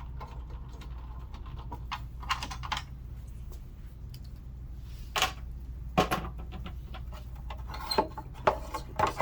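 Scattered clicks and knocks of screws, a hand tool and plastic body panels being handled while the rear shroud of a mobility scooter is unscrewed and taken off. The clicks are irregular, with a cluster near the end, over a steady low hum.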